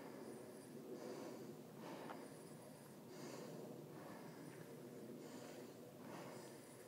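A person breathing hard close to the microphone, faint, about one breath a second.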